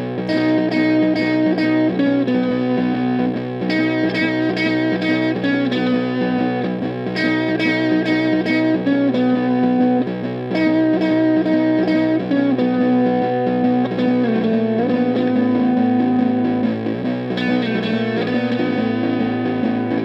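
Electric guitar, a Fender Jazzmaster on its middle pickup setting, played through a Bookworm Effects Seths fuzz pedal into a Silvertone 1472 amp: gritty fuzz-distorted chords, struck and let ring, changing every second or two, with new strums every three to four seconds.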